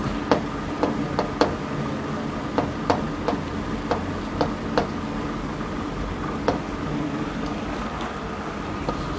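Chalk writing on a blackboard: a string of short, irregular taps as the chalk strikes the board stroke by stroke, over a steady faint room hum.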